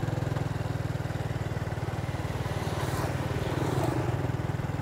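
Motorbike engine running steadily while riding along, a low drone with an even, rapid pulsing.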